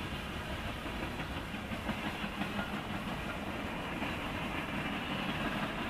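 Freight cars of a mixed freight train rolling past: a steady noise of steel wheels on the rails, with faint clicks as the wheels cross rail joints.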